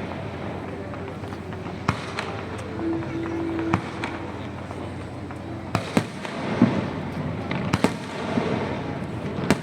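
Aerial fireworks bursting: sharp single bangs, about eight of them, coming irregularly every second or two.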